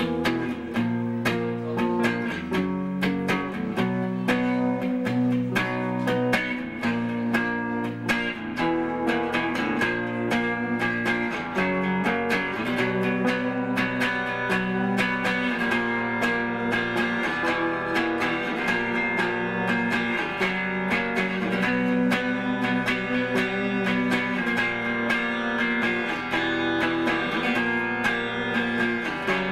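Live band playing an instrumental passage on guitars, without drums: dense plucked notes over chords that change every second or so.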